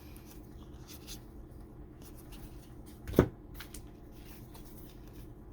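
Trading cards being handled and flicked through, a faint soft rustling with light clicks of card stock, and one short sharp sound a little after three seconds in.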